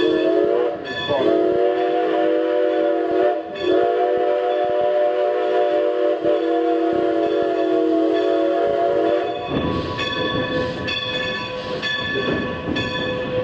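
Steam locomotive No. 90's whistle blowing two blasts, several tones sounding together: a shorter one about a second in, then a long one of nearly six seconds that cuts off about two-thirds through. The train's running rumble and rhythmic clicking fill the rest.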